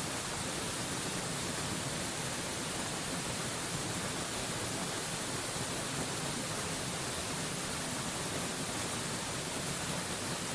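Mountain waterfall rushing: a steady, even hiss, brightest in the treble, with no changes or separate sounds.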